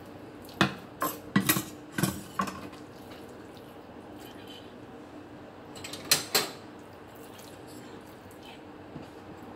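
Sharp clicks and knocks of metal kitchen scissors and a plastic food tray being handled on a cutting board: a quick cluster in the first couple of seconds, then two more about six seconds in.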